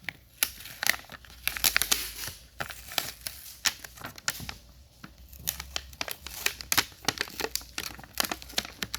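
Plastic wrapping on a battery pack, already cut open, being pulled apart and handled, crinkling with many quick, irregular crackles.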